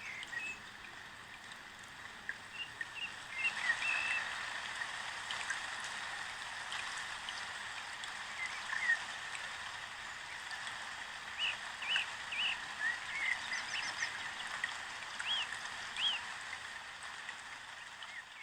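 Small birds chirping irregularly, short high calls over a steady hiss.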